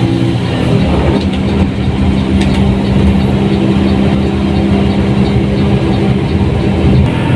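Diesel engine of a front-engined Mercedes-Benz 1623 bus running steadily under way, its note changing about half a second in and again near the end.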